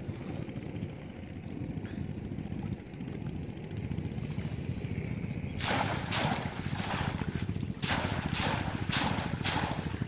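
Low wind rumble on the microphone, then from about halfway a run of quick rhythmic splashes, about two a second, as a rectangular bamboo fish trap is swished and plunged through shallow water.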